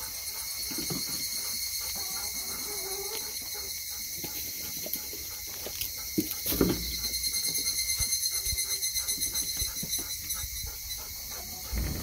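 Chickens clucking softly, over a steady high-pitched buzz that pulses rapidly through the second half.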